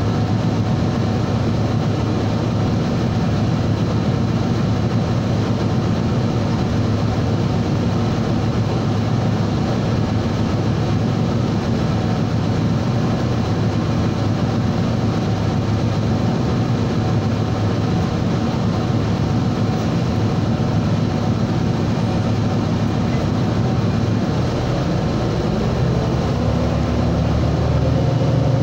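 Steady engine and road noise inside a moving city transit bus, with the engine note rising in pitch over the last few seconds as the bus speeds up.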